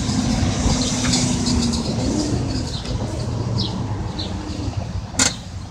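Steady low hum and rumble of outdoor machinery or traffic. A held low tone fades out about two and a half seconds in, a few short bird chirps come through, and a single sharp click sounds about five seconds in.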